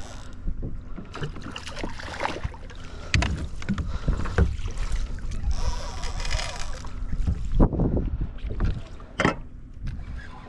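Water splashing and irregular knocks against a kayak as a large longnose gar thrashes alongside on the line, over a low rumble. Several sharp knocks or splashes come through, the loudest about three, four and a half, and nine seconds in.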